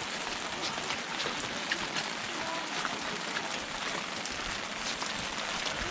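Steady rain falling, with many separate drops ticking sharply through the hiss.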